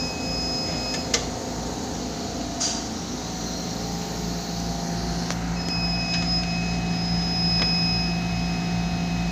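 Steady whir and hum of running laboratory equipment. A thin high whine cuts out at a sharp click about a second in and returns about five and a half seconds in, with a few fainter clicks in between.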